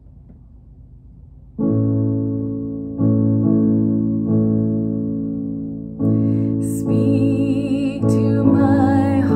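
Electric keyboard playing sustained piano chords as a song introduction, starting about a second and a half in with a new chord every second or few; from about seven seconds in a wavering higher tone joins the chords.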